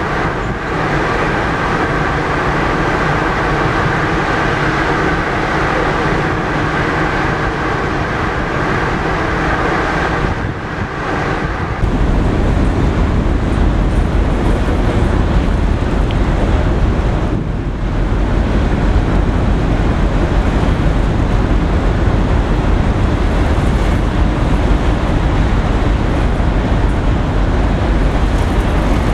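Large car ferry under way: a steady drone of engines and machinery, with several steady hum tones over a rushing wash. About twelve seconds in, the sound changes to a louder, deeper, steady rumble.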